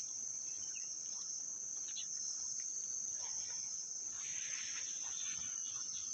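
Steady high-pitched drone of an insect chorus, with a faint rustle about four seconds in.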